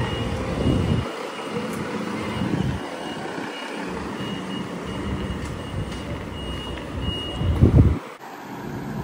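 Mercedes-Benz heavy truck's diesel engine running as the truck moves slowly toward the microphone, with a vehicle warning beeper giving short, high repeated beeps in the middle. A loud low buffet comes near the end.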